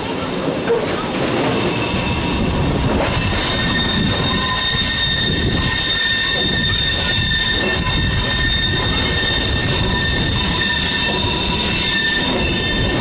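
Electric passenger trains rolling slowly over the station tracks: a National Express regional unit, then an RRX double-deck train. From about three seconds in, the wheels squeal in steady high-pitched tones over the running rumble.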